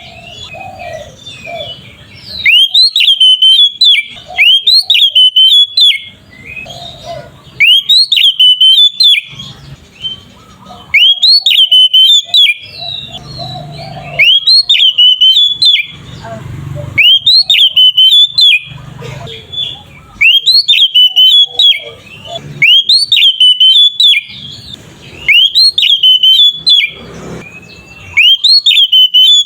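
Oriental magpie-robin (kacer) singing loudly in the 'ngeplong' style: one high, sweeping whistled phrase, rising then falling, repeated over and over with short pauses between.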